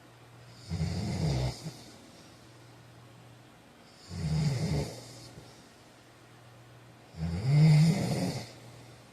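A heavy-set man snoring in his sleep: three low snores about three seconds apart, each lasting a little over a second, the third the loudest. A steady low hum runs underneath.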